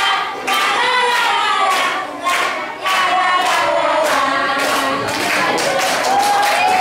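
A group of young children singing together, with some hand claps among the singing.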